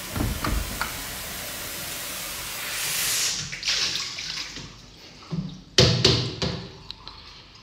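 Tap water running into a kitchen sink, growing louder for about three seconds and then fading. A few sharp knocks follow about six seconds in.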